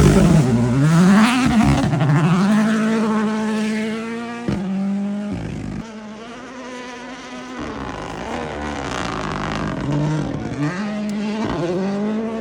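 Rally car engine at full throttle passing close, then pulling away. The note climbs and drops sharply at each gear change as it fades, then builds again further off with more quick lifts and shifts.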